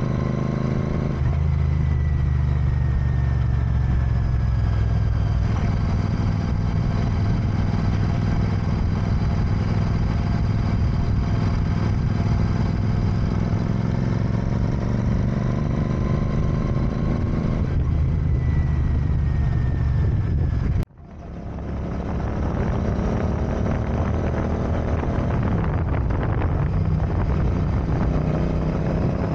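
Royal Enfield motorcycle engine running on the move through traffic, its pitch rising and falling as it accelerates and eases off. About two-thirds of the way through the sound cuts out abruptly and fades back in.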